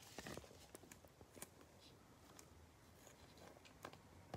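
Near silence, with faint rustles and a few light ticks of a trading card being slid into a clear plastic card sleeve.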